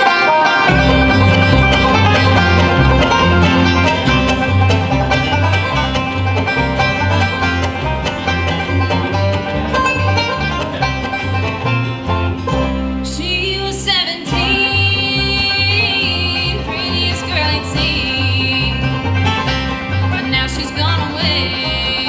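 Bluegrass band playing: banjo picking, acoustic guitar and mandolin strumming over a walking upright bass. The rhythm pauses briefly about halfway through, and a woman's voice comes in singing.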